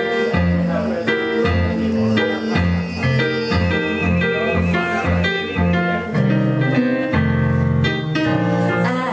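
Electric keyboard playing an instrumental break in a slow blues song: sustained chords over a bass line stepping about twice a second.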